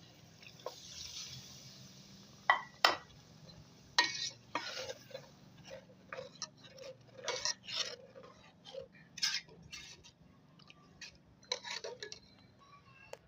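A spoon clinking and scraping against a cooking pot, with two sharp knocks about two and a half seconds in, then a string of short irregular clinks and scrapes as the pot is stirred.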